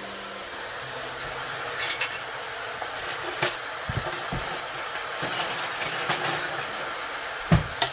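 Chicken and pork ribs sizzling as they brown in a large pot. A metal ladle clinks and scrapes against the pot several times, with a louder knock near the end.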